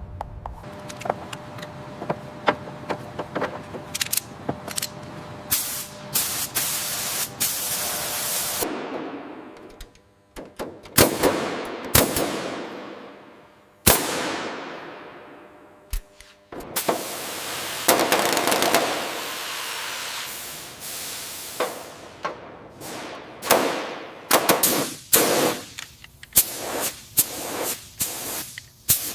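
Metal repair work: many sharp knocks and clicks with several bursts of hissing that fade away, including a long one about two-thirds in.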